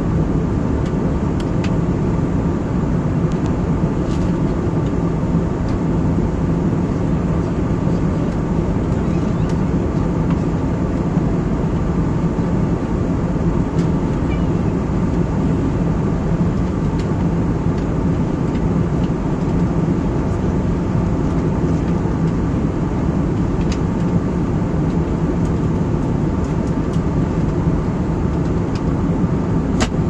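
Jet airliner in cruise heard from inside the cabin: a steady rush of airflow and engine drone, heaviest in the low end, with a faint constant hum over it.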